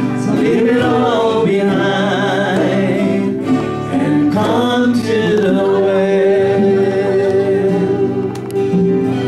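A worship band playing a song, with voices singing held, wavering notes over acoustic guitar.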